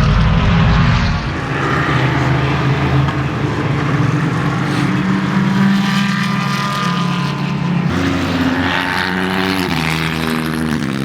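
Race car engine running at high revs, its pitch stepping up and down a few times as it shifts gear.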